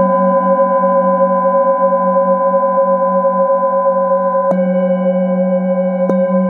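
Singing bowls ringing on with long, overlapping tones, the lowest one wavering in a steady pulse. A wooden mallet strikes a bowl about four and a half seconds in, renewing the ringing, and a lighter strike comes near the end.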